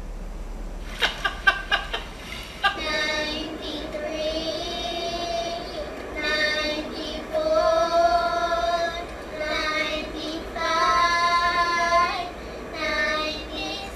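A man singing long, high-pitched held notes in several phrases with short breaks between them. A few sharp knocks come in the first two seconds, before the singing starts.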